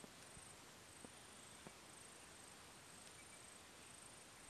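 Near silence: faint bush ambience with a high, thin insect chirp pulsing about every two-thirds of a second.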